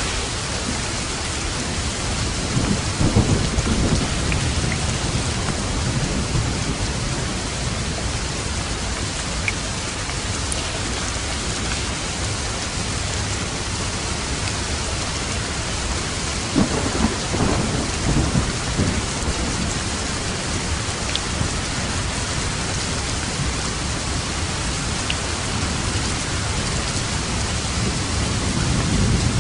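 Steady heavy rain on a roof, with rumbles of thunder about three seconds in, again a little past halfway, and near the end.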